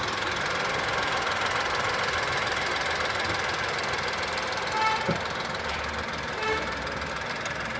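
Tata Punch's three-cylinder petrol engine idling with a steady, even running noise. The owner finds the engine noise very high and the car vibrating, which he puts down to it being a three-cylinder.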